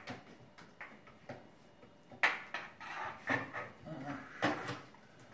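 Handling noises while a python is worked loose from a fridge: a scatter of short knocks and scrapes, the loudest about two seconds in and another near the end.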